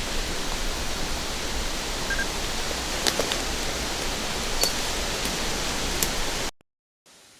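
A steady, even rushing noise with a few faint clicks, which cuts off abruptly about six and a half seconds in.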